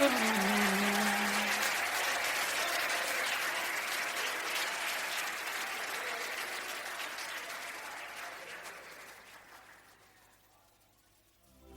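Audience applauding, with a last low note dying away in the first couple of seconds; the applause fades out gradually and is gone near the end.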